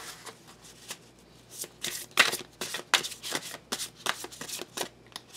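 A deck of tarot cards being shuffled by hand: a run of short, irregular card flicks and rustles, sparse at first and busiest from about two seconds in until shortly before the end.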